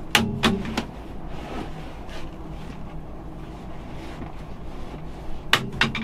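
Handling noise from fitting a fabric cushion cover onto a bench seat: three sharp knocks near the start and two near the end, with faint rustling between.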